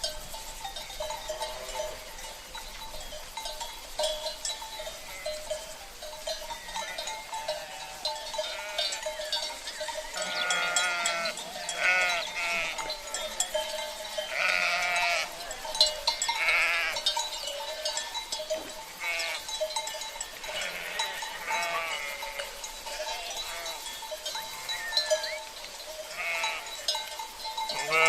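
Sheep bleating again and again, several calls overlapping, over the steady clanking and ringing of livestock bells (cencerros).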